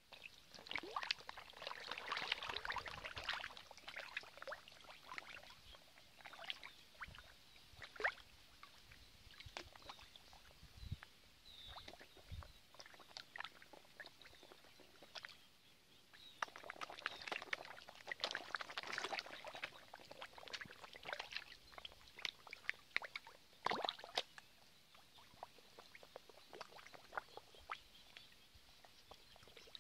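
A crowd of koi thrashing at the pond surface, making rapid small splashes and water crackles. The splashing comes in two dense bursts, about a second in and again around seventeen seconds in, with scattered splashes between.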